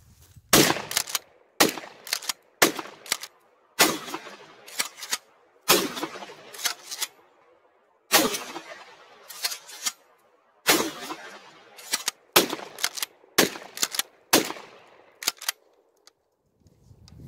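Charles Daly 301 Tactical pump-action 12-gauge shotgun fired shot after shot, every one to two and a half seconds or so, each blast echoing. The pump is racked between shots. The firing stops near the end.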